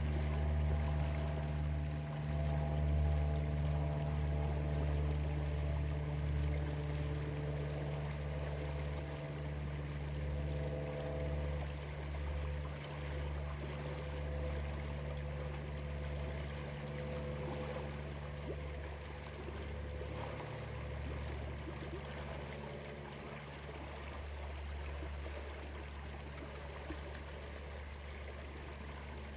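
Shallow river water flowing and rippling in a steady wash. Under it runs a low steady motor hum, strongest in the first half and gradually fading.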